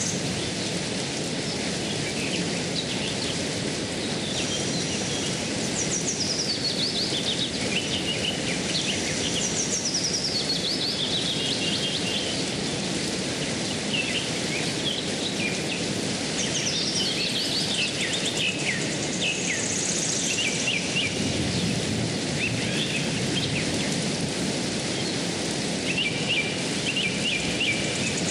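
Shallow rocky stream rushing steadily, with birds calling over it in repeated runs of short high notes that step down in pitch.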